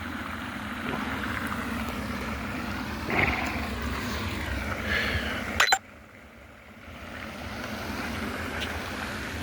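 Steady outdoor rumble with wind noise on a phone microphone. A sharp click comes a little over halfway through, after which the rumble drops much quieter and slowly builds again.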